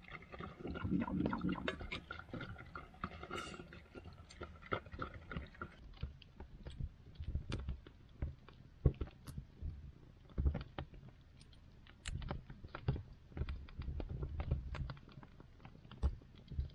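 Wood fire crackling in a stone fireplace, with sharp snaps and pops scattered irregularly over a low rumble. In the first few seconds a dog is eating from a pan close by.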